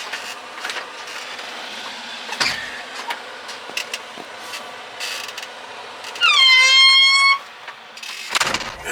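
Knocks, clicks and thumps of someone climbing into a Cat 320 excavator's cab, with a deep thump a couple of seconds in and another near the end. About six seconds in, a loud horn-like tone sounds for about a second: it slides down briefly, then holds steady.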